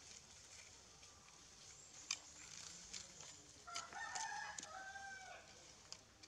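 A rooster crows once, starting a little under four seconds in and lasting about two seconds, with scattered small clicks and ticks around it.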